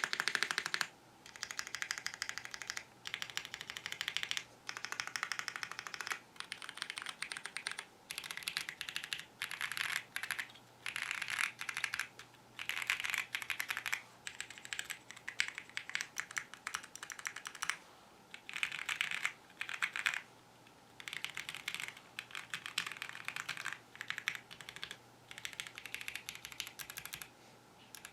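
Typing on a modded Bridge75 mechanical keyboard, fully foamed, with Wuque Studio Basic Yellow keycaps: rapid key clacks in runs of a second or two with short pauses between them.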